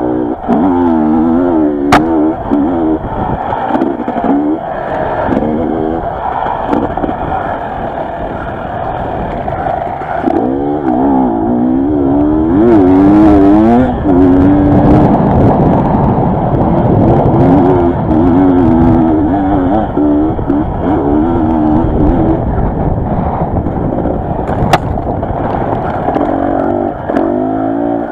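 Enduro dirt bike engine revving up and down again and again with the throttle as it is ridden over a rough dirt trail, heard from the bike. Two sharp knocks stand out, about two seconds in and near the end.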